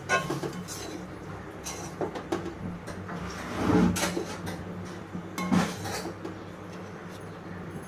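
A spatula stirring fried rice in a cooking pan, with several scrapes and knocks against the pan, mixing in the ground pepper just added.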